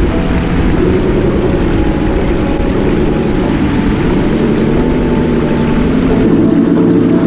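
Engine sound of a Traxxas TRX-4 Land Rover Defender RC crawler, a steady drone whose pitch dips and rises again with the throttle and grows a little louder near the end.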